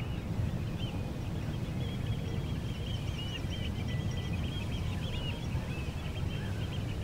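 A flock of birds calling: many short, overlapping calls over a steady low rumble.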